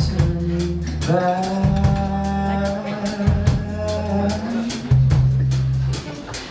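Live band playing an upbeat song: a drum kit keeps a steady beat over bass notes, and a melodic line is held for a few seconds about a second in.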